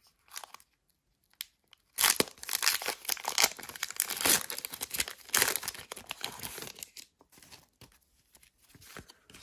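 A Pokémon TCG Battle Styles booster pack's foil wrapper being torn open and crinkled: sparse faint crinkles at first, then a loud dense crackling tear from about two seconds in until about seven seconds, then quieter rustling as the cards are slid out.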